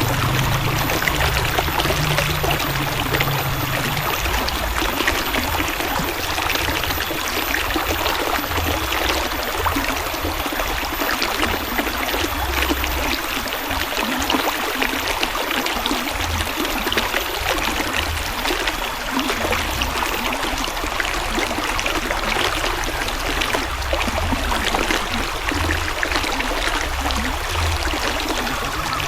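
River water flowing steadily, a continuous rush with trickling over it.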